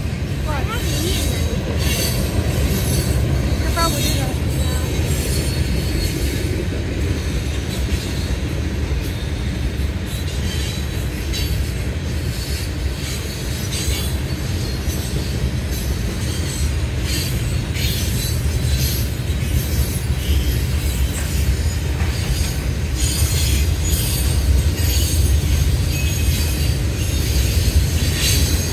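Freight train of tank cars and covered hoppers rolling past: a steady low rumble with irregular wheel clicks and clatter, and a few short wheel squeals in the first few seconds.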